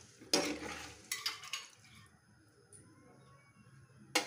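Metal ladle stirring thin tamarind liquid in an aluminium kadai, clinking and scraping against the pan several times in the first second and a half, then quieter. One sharp knock near the end.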